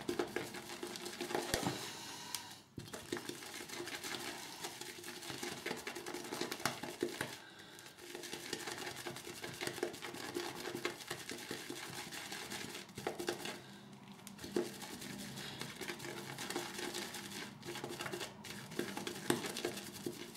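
RazoRock Plissoft synthetic-knot shaving brush whisked round a shaving bowl, building lather: a continuous wet swishing with fine clicks, easing off briefly a few times.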